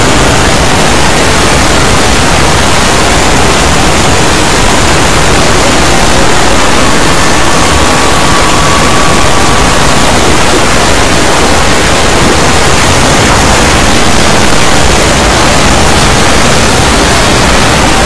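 Loud, steady wall of harsh static-like noise, made of many audio clips layered on top of each other and sped up until they blur together.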